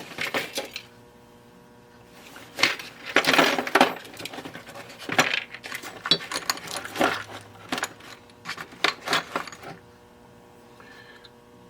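Small metal parts clinking and rattling in a box as someone rummages through it by hand, in irregular bursts with short pauses between.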